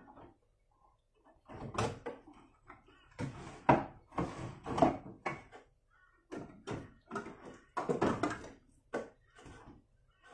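Metal food tins being handled and set down on a pantry shelf and in its basket: a run of irregular knocks and clunks, with a quiet gap about a second in.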